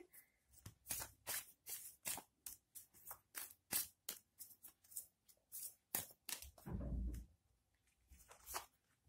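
A deck of tarot cards being shuffled by hand, the cards flicking and slapping together in quick soft strokes about three a second. There is a short low thump about seven seconds in.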